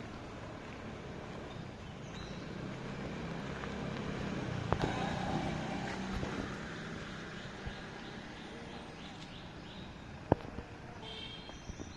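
Steady engine and road noise of a vehicle driving, swelling louder about four to six seconds in, with a couple of sharp knocks.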